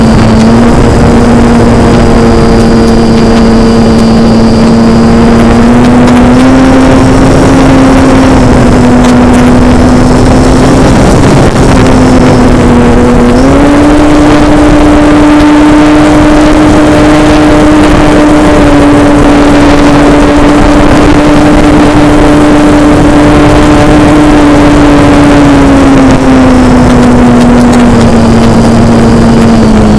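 Model airplane's motor and propeller running with a steady drone, heard loud over rushing wind. The pitch steps up slightly about halfway through as the throttle rises, then settles back down near the end.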